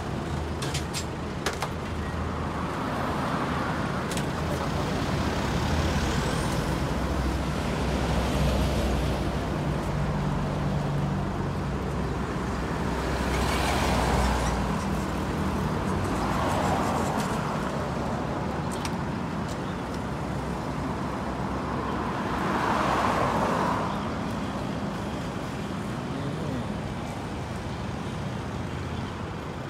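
Road traffic passing, each vehicle swelling and fading every few seconds, over a low engine rumble that stops about 13 seconds in.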